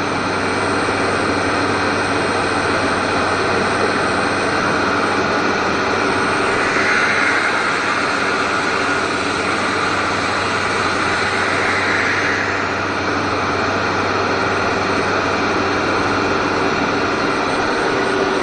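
Workshop machinery running steadily, a constant hum with several fixed tones under a noisy whir. A higher-pitched whine swells up twice in the middle and then settles back.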